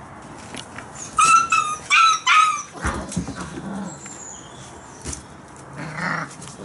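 Month-old German Shepherd puppies play-fighting. One gives about four short, high yelps in quick succession about a second in, followed by rougher scuffling sounds and some clicks.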